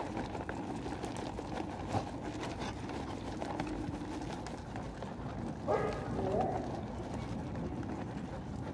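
A group of stray dogs eating and moving about on concrete, with scattered clicks and scuffs. About six seconds in there is a short, pitched cry.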